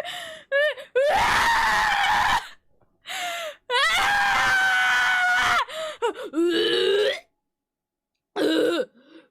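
A young woman's voice letting out a run of high-pitched, breathless wheezing squeals: first a harsh one of about a second and a half, then a long held squeal of about two seconds in the middle. Shorter gasping squeals follow, and the last comes near the end. She is out of breath and can't get air.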